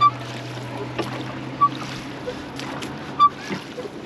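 A boat engine running at a steady low hum, with three short, sharp high chirps about a second and a half apart.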